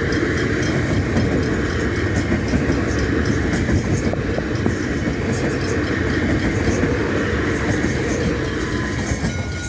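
A train passing close by at speed: a steady rumble and hiss of wheels running on the rails, easing slightly near the end.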